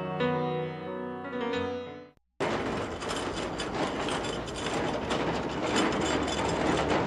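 Piano music that cuts off about two seconds in; after a moment's silence, a wheeled cleaning cart rattles steadily with a dense run of fine clicks as it is pushed.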